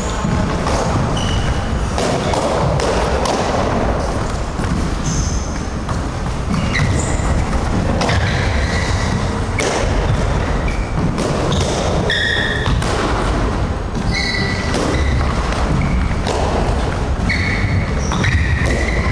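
Stick-fighting sparring: sticks knocking and thudding against each other and on the body, with footsteps and many short, high sneaker squeaks on a wooden floor. It is irregular and goes on throughout, over a steady low rumble.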